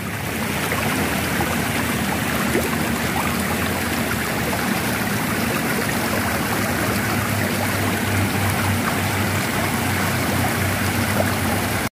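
Steady rushing of flowing water, as of an irrigation ditch running full beside rice paddies.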